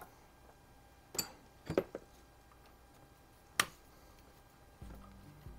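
A few light metallic clicks and clinks of a 4 mm hex (Allen) key working a screw out of an air rifle, scattered over several seconds, the last one short and sharp. Soft background music comes in near the end.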